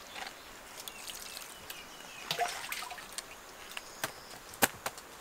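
Water dripping and trickling as a bowl and a woven bamboo basket are handled, with light scattered taps and knocks; the sharpest knock comes about four and a half seconds in.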